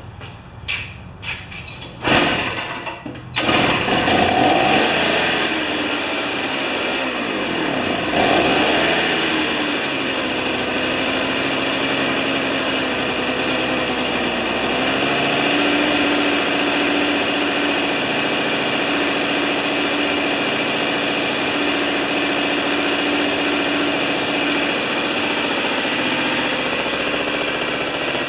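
Tecumseh two-stroke snow-thrower engine starting about three seconds in after a few short rasps, revving up and down unevenly, then settling into a steady run from about ten seconds. It is an engine brought back to life after years of sitting, running on a fresh 40:1 fuel-oil mix.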